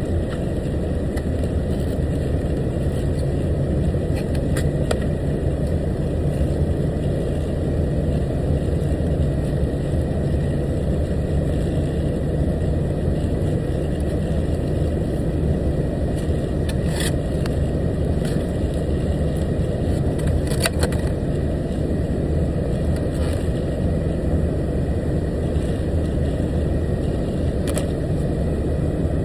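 Truck engine running with a steady low hum, pitch unchanging throughout, with a few faint clicks over it.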